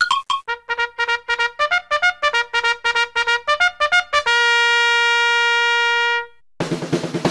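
Upbeat intro music: a bright melody of quick, short notes ends on one long held note about four seconds in. After a brief pause, a full band with drums comes in near the end.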